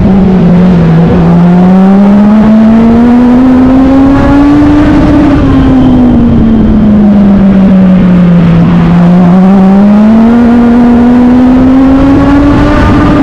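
Legend race car's four-cylinder Yamaha motorcycle engine at racing speed, heard loud from on board. The engine climbs in pitch for about four seconds under acceleration, drops back as the driver lifts for a turn, then climbs again over steady wind and road noise.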